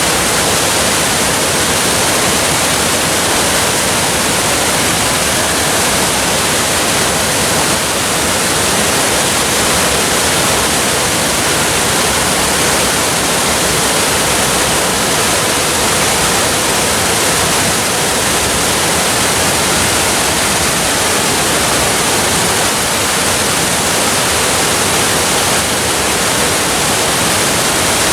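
Waterfall, a steady, loud, unbroken rush of falling water.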